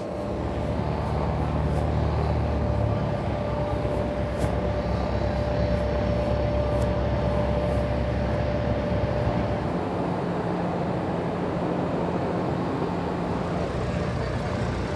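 Aircraft engine running steadily, a low drone with a thin steady whistle over it that drops out about two-thirds of the way through.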